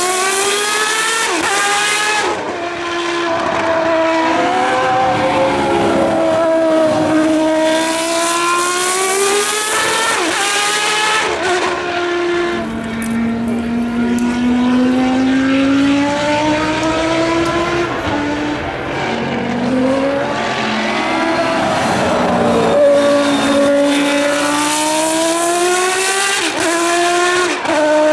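1992 Footwork Arrows FA13 Formula One car's 3.5-litre V10 engine at high revs, its pitch climbing through the gears with sharp drops at each change, sinking to a lower, steadier note about halfway through, then climbing again.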